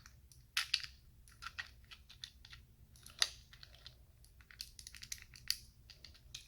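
Plastic LEGO Technic pieces clicking and rattling as they are handled and pressed together, in irregular quick clicks with a few sharper snaps.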